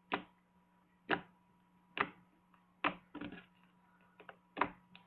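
Cereal milk slime being pressed with the fingertips, giving sharp clicks about once a second with a few softer ones between: the clicky texture this slime is made for.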